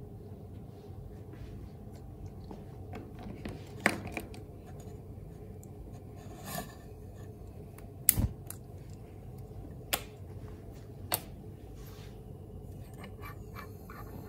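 Bunsen burner being handled and lit: a few sharp clicks and knocks, the loudest just after the middle, then a run of small ticks and a soft gas hiss that starts near the end.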